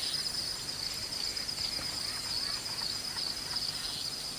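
Steady high-pitched chorus of night insects, with faint scattered ticks and rustles beneath it.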